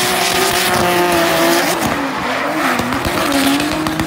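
Drift car sliding at full power: the engine is held high in the revs, its pitch wavering up and down and dipping twice in the second half as the throttle is worked. The rear tyres squeal and skid through the smoky slide.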